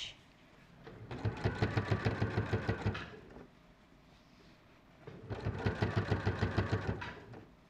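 Domestic sewing machine running a straight stitch close to the fabric edge, in two runs of about two seconds each with a short pause between, each a fast even rhythm of needle strokes.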